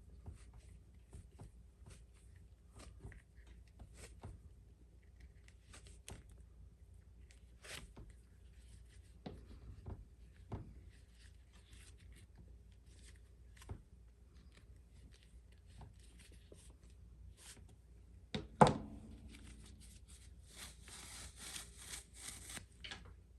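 Leather baseball-glove lace being worked loose and pulled through the lace holes: scattered soft rubs and small clicks, then a scratchy rasp of lace drawn through leather near the end. About two-thirds through comes a single sharp knock, the loudest sound.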